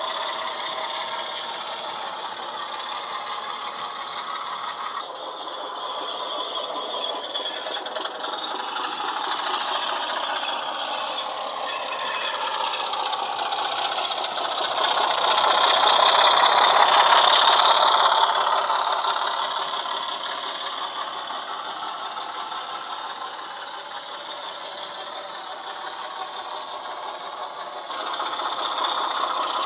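Model diesel locomotive's DCC sound decoder (LokSound 5 with a Class 25 sound file) playing a Sulzer diesel engine running under power through a small sugar-cube speaker, with the model's wheels rattling over the track. It grows louder as the model passes close by around the middle, then fades.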